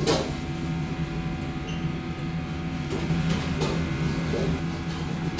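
Restaurant room tone: a steady low hum from fans or kitchen equipment, with a few short clicks and knocks at the start, about three seconds in and near the end.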